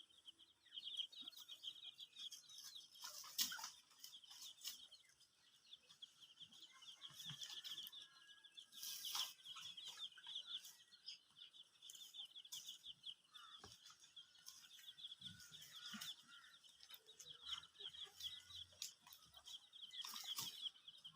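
Faint farmyard sounds: chickens clucking softly over a steady high trill, with scattered soft rustles and clicks.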